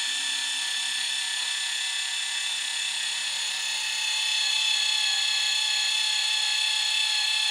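12-volt electric linear actuator with a 12-inch stroke running under power, a steady high motor whine as it swings the snowplow blade round; it grows slightly louder about four seconds in.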